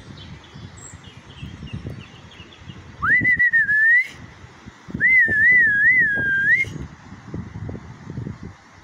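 A person whistling two loud notes: the first, about three seconds in, slides up and wavers, and the second, about five seconds in, warbles up and down three times before rising at the end. A low rumble runs underneath.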